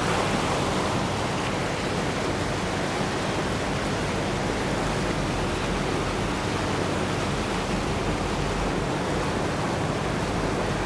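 Steady rushing noise of a river tour boat under way, with a low, even drone beneath it.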